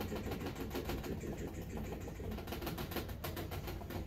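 Paintbrush dabbing acrylic paint onto a canvas: a quick run of soft taps, several a second, over a steady low hum.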